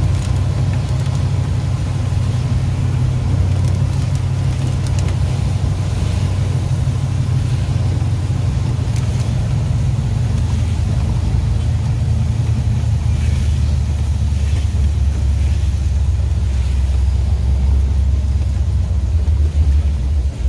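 Maruti Suzuki Gypsy King's engine and road noise heard inside the cabin while driving in rain: a low, steady drone that grows a little heavier in the last few seconds.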